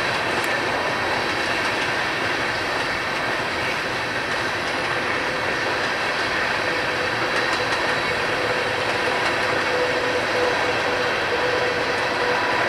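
Coal gondolas of a long freight train rolling past: a steady rumble of steel wheels on rail. Over it runs a thin steady squealing tone from the wheels, which grows stronger in the second half.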